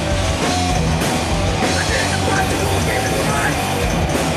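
Live rock band playing a song: electric guitars and bass over a drum kit, loud and steady.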